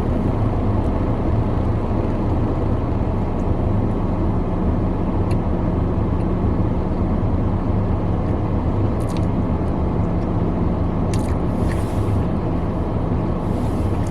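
Car engine idling, a steady low drone heard from inside the cabin, with a few light clicks over it.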